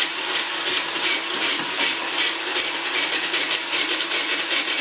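Ice shaver grinding ice into shaved ice, a rasping scrape that repeats in a quick, even rhythm of about four to five strokes a second.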